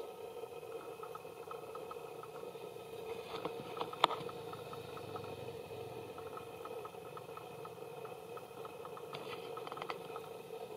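A steady hum of several held tones, with scattered faint ticks and a single sharp click about four seconds in.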